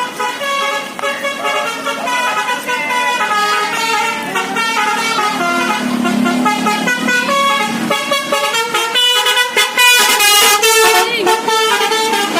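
Bus basuri musical horn playing a melody, its notes stepping up and down every fraction of a second, with a short rush of hiss about ten seconds in.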